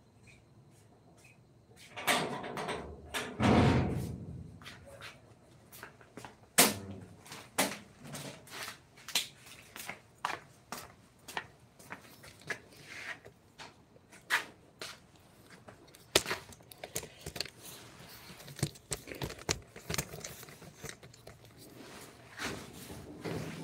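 Irregular sharp taps and knocks of hand work on wood, with a louder scraping, rustling stretch a couple of seconds in.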